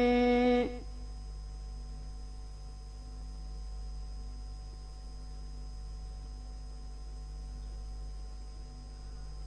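A man's Quran recitation ends on a held note under a second in, then stops abruptly. What follows is the steady electrical hum and hiss of an old recording, with no voice.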